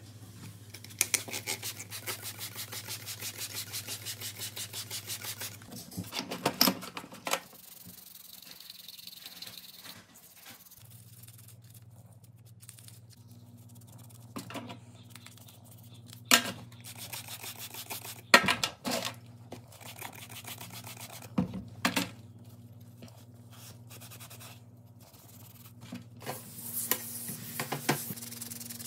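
Parts of a 1927 Black & Decker drill being cleaned in a stainless steel tray. A fast, even rasping of scrubbing runs for a few seconds at the start, then metal parts clink and knock against the tray several times. Near the end there is a hiss of degreaser being sprayed, all over a steady low hum.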